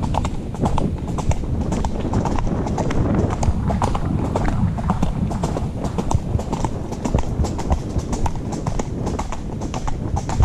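A horse's hooves clip-clopping steadily on a dirt-and-gravel track as it is ridden, with a low rumble underneath.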